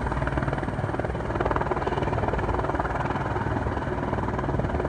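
Light helicopter flying close by, its rotor beating steadily in rapid, even pulses.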